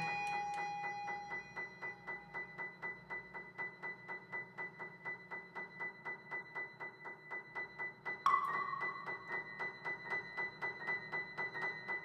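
Contemporary chamber music: soft piano notes repeated in a fast, even pulse under steady held tones. About eight seconds in, a higher held note enters over the pulse.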